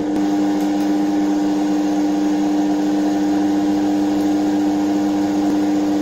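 Treadmill DC motor belt-driving a washing-machine universal motor, both spinning at a constant speed with a steady hum: one strong low tone and its overtones. The universal motor is running as a self-excited generator under load, lighting a bulb.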